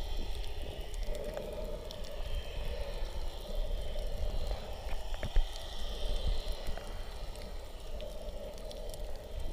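Underwater ambience picked up by a submerged camera: a steady low, muffled rumble with swells of hiss and scattered faint clicks.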